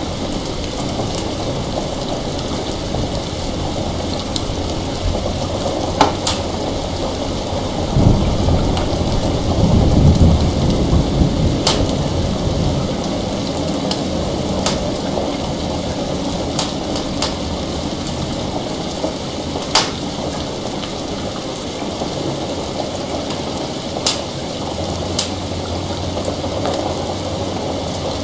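Heavy rain falling steadily, with a low roll of distant thunder that swells about eight seconds in, peaks near ten seconds and dies away a few seconds later. Scattered single sharp pops sound every few seconds over the rain.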